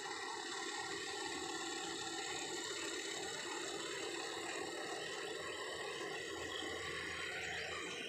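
Yanmar rice combine harvester running steadily as it cuts and threshes, a continuous machine noise with high whining tones over it.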